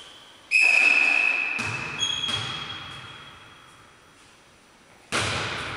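Volleyball referee's whistle blown sharply about half a second in, then a second, higher whistle tone about two seconds in; both ring on and fade in the echoing sports hall. A sudden sharp hit sounds near the end.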